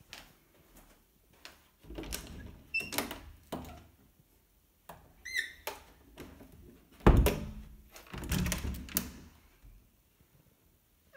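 Interior panel door being opened and shut: latch and handle clicks and knocks, a short squeak about five seconds in, and a heavy thud about seven seconds in, followed by more knocking.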